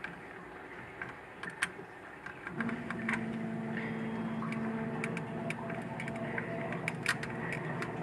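Scattered light clicks and taps of hands and a tool working at a 3D printer's build plate, prying at a stuck printed part. About two and a half seconds in, a steady low machine hum starts and keeps going.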